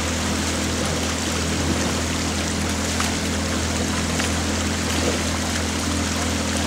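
Outboard motor of a coaching launch running at a steady speed, with water rushing past the hull.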